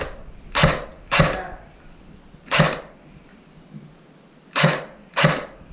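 Airsoft electric gun firing five single shots, each a short sharp burst, spaced irregularly over a few seconds.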